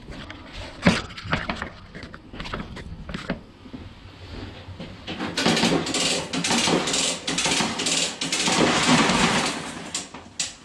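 Come-along being cranked to pull a stuck drain-snake cable out of a sewer pipe: a few scattered metallic knocks, then from about five seconds in a rapid, continuous run of ratchet clicks and clanks with the cable straining.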